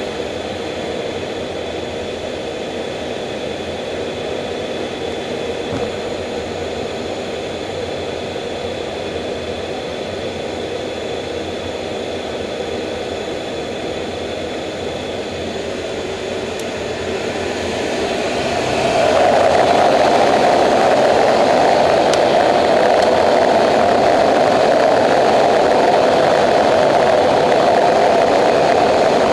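The twin turbofan engines of an F/A-18F Super Hornet, heard from inside the cockpit, run steadily at low power. About two-thirds of the way through they spool up over a couple of seconds to a louder, steady full-power run on the catapult before launch.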